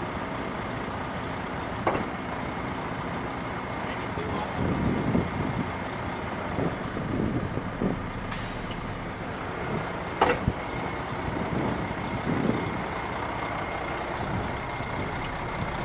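Semi truck's diesel engine running steadily while its raised rear wheels spin in gear, with a couple of sharp clicks and a short hiss of air about eight seconds in.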